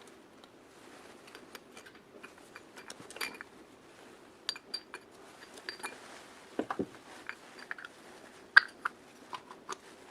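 Irregular clicks and light metallic clinks of small metal parts and tools being handled, with one sharper knock about two-thirds of the way through.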